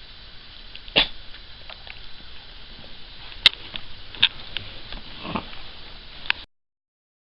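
Cavalier King Charles spaniel sniffing, with a few short, sharp clicks over a low hiss; the sound cuts off abruptly near the end.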